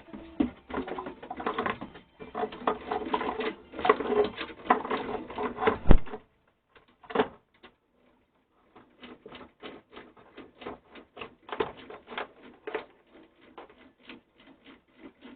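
Ratchet of a hand-operated cable hoist clicking as it is worked to raise a load: dense rattling clicks with a sharp knock about six seconds in, then after a short pause, steady clicks at about three a second.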